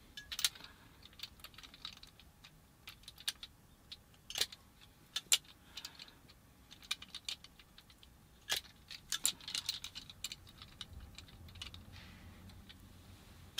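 Irregular sharp clicks and snaps of a hand wire stripper closing and springing open as it strips the insulation from the ends of the blue and brown cores of a mains cable.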